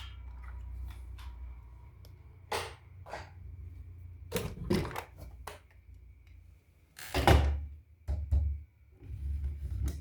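Handling noises of toys and their packaging: irregular clicks and knocks, the loudest a heavy thunk about seven seconds in.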